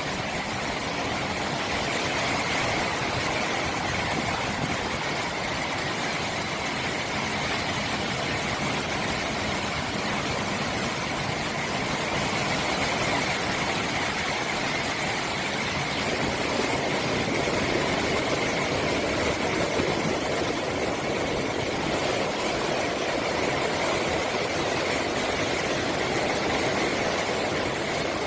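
Heavy post-typhoon surf crashing and rushing continuously, mixed with strong wind, recorded on a smartphone microphone. It swells a little louder about twelve and seventeen seconds in.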